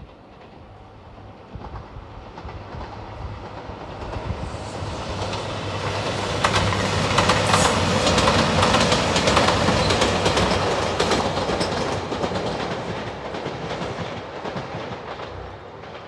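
Three-car JR Shikoku 2700 series diesel limited express train passing at speed: the sound builds, peaks about halfway through with the clickety-clack of wheels over rail joints, then fades away.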